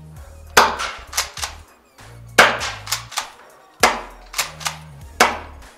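Gas-powered pump-action airsoft shotgun (Secutor Velites Invicta third generation) fired four times, about a second and a half apart, each sharp crack followed by quieter clicks of the pump being racked. The gun is set to fire three shots at once.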